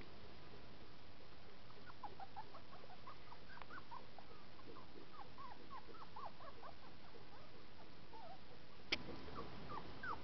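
Litter of five-week-old English setter puppies whimpering: many short high squeaks from about two seconds in, a sharp click near the end, then a longer whine starting just before the end.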